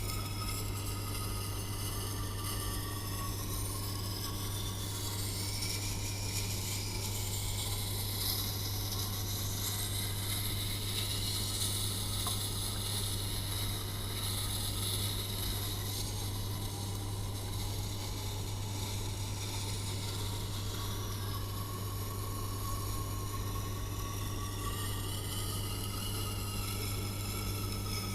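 Tormek T8 wet grinder running with a steady motor hum, a kitchen knife blade scraping with a hiss against the turning wet stone; the hiss swells and eases, loudest through the middle.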